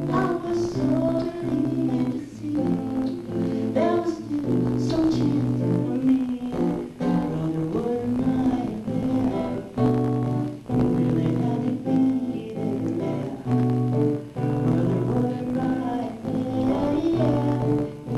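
A woman singing a song to her own acoustic guitar accompaniment.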